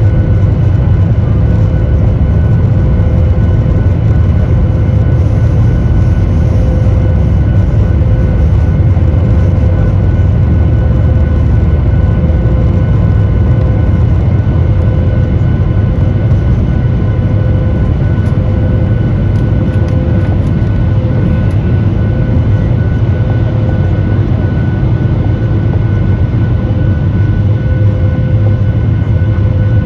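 Boeing 737 MAX 8's CFM LEAP-1B turbofan engines running at high thrust during takeoff: a steady loud rumble with several steady whining tones over it.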